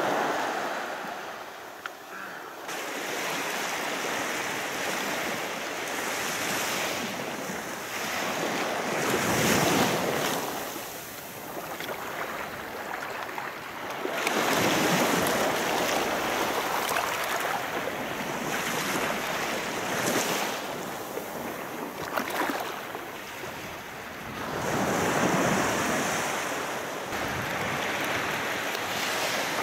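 Sea waves breaking and washing up a sandy beach, swelling and ebbing in surges every few seconds.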